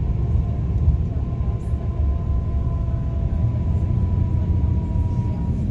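Steady low rumble of a moving road vehicle heard from inside, engine and road noise, with a faint steady whine that sinks slightly in pitch.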